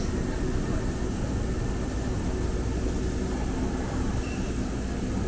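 Steady rumble and hiss of a Muni Metro light-rail car running, heard from inside the passenger car.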